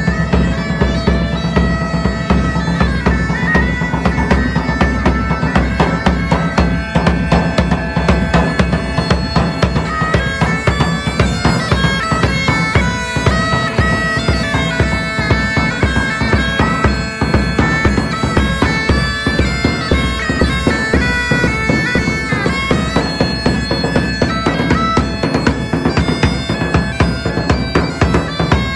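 Bagpipes playing a melody over a steady drone, with drums beating along.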